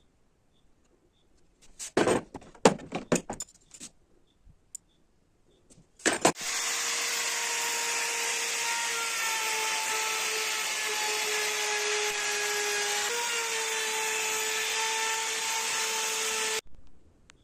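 A few handling clicks and knocks, then the Black & Decker KW1200E wood router's motor switched on and running at a steady high-pitched whine for about ten seconds. The pitch sags slightly and recovers about two-thirds of the way through, and the sound cuts off suddenly.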